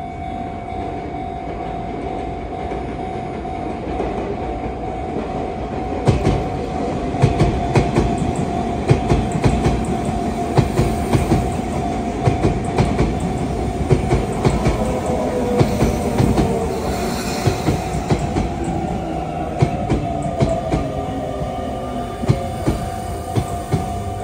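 Sotetsu electric commuter train running into the station over points and rail joints, its wheels clicking in quick irregular runs from about six seconds in. A steady high tone runs under it until near the end. Midway a whine of several pitches falls as the train brakes to a stop.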